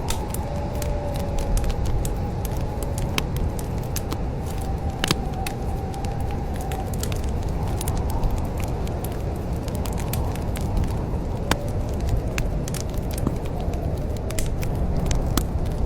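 Wood fire in a fireplace crackling, with many sharp irregular pops over a steady low rumble. A faint, wavering thin whistle sits underneath.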